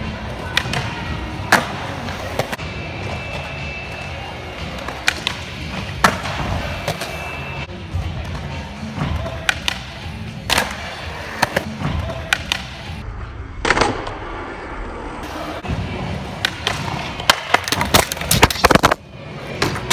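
Skateboard wheels rolling on a smooth concrete floor, broken by many sharp clacks of tail pops and landings, with the board sliding along a metal rail about halfway through.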